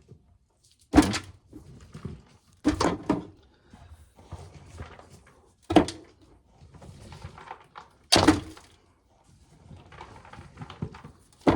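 Ears of corn tossed into a pail, landing as four sharp thunks a couple of seconds apart, with rustling and scraping of husked ears between.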